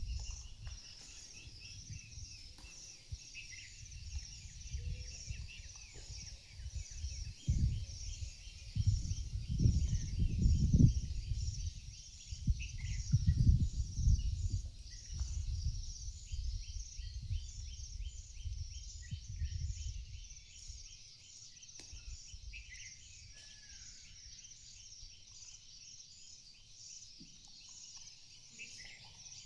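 Outdoor chorus of birds and insects chirping steadily, with fast repeated chirps throughout. An uneven low rumble swells under it about a quarter of the way in, is loudest around a third of the way through, and dies away past the middle.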